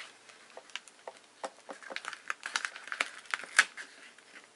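Paper and cardstock being handled and pressed down onto a white card base: a scatter of light taps, clicks and rustles, busiest in the second half, with the sharpest click about three and a half seconds in.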